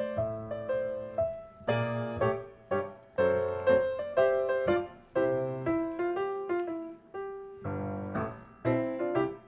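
Background piano music, a gentle melody of struck notes that ring and fade.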